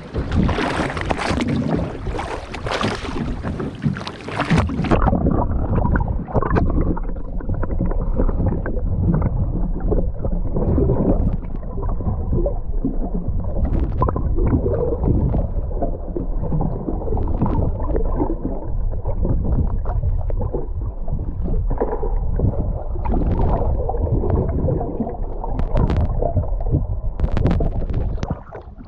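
Sea water splashing and rushing over an action camera as it goes into the sea, then about five seconds in the sound turns muffled and low: water sloshing and gurgling around the submerged camera, with a few sharp ticks in the second half.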